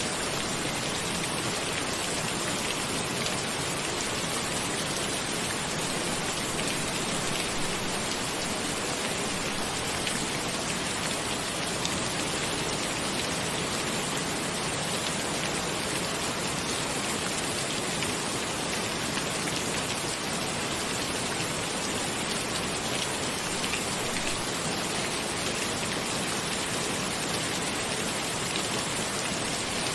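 Steady rain falling on a cabin, an even hiss with fine patter of individual drops.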